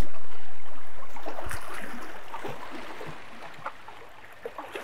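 Small bay waves lapping and splashing against a rocky shoreline, with scattered small splashes, loudest at the start and fading steadily.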